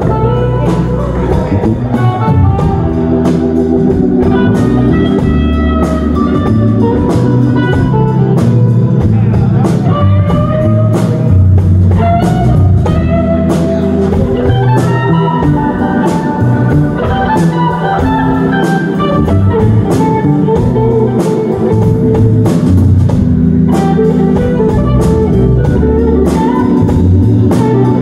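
Live band playing: electric guitar, bass guitar and drum kit over a steady beat.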